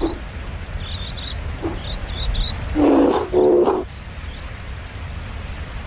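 Small birds chirping faintly and repeatedly over a steady low rumble, with two short, loud animal calls in quick succession about three seconds in.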